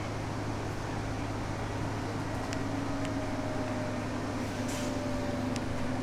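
Interior running noise of a New Flyer DE60LFR diesel-electric hybrid articulated bus under way, with a Cummins ISL9 engine and an Allison EP50 hybrid drive. A steady drone carries a faint whine that sinks slightly in pitch, with a few light rattles from the cabin.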